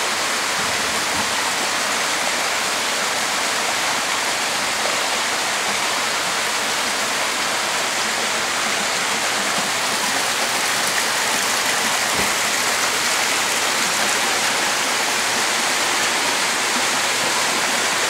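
Steady rush of running water churning into a koi pool.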